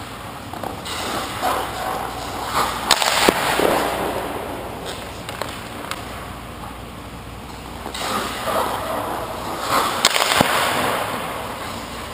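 Hockey goalie's skate blades scraping across the ice in two spells of crease movement, about a second in and again about eight seconds in. Each spell carries a couple of sharp knocks.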